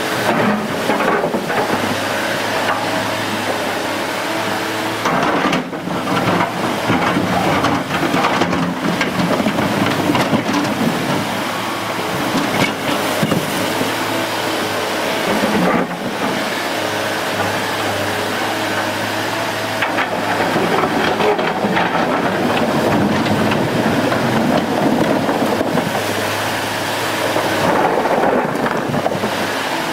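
Heavy machinery engines running: a loud, dense noise over a steady low hum that drops out briefly a few times.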